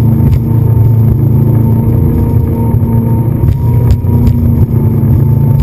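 Speedboat engine running steadily under way, a loud low drone, with a few brief sharp knocks over it.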